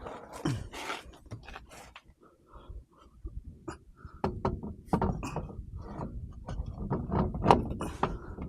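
Irregular metallic clicks, knocks and clatter of hand tools and wheel hardware being handled while a wheel is mounted on a car, busier in the second half.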